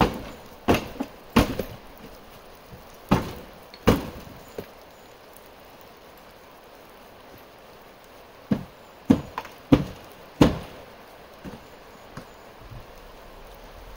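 A series of sharp, irregular knocks and bangs: about six in the first few seconds, a pause of about three seconds, then another quick run of five, with a couple of faint ones near the end.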